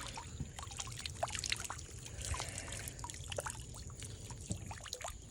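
Water trickling and dripping, with scattered small splashes and clicks, typical of a dip net being worked in and lifted out of the water.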